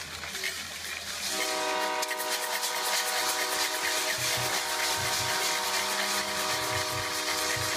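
A steady multi-note horn chord, like a train horn, comes in about a second and a half in and holds without a break. Under it are crowd noise and a few low drum-like thumps.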